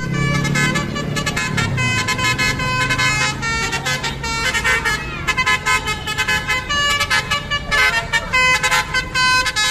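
Bus telolet horn: a multi-tone air horn playing a quick melody of short, changing notes, with the bus engine rumbling underneath for the first few seconds.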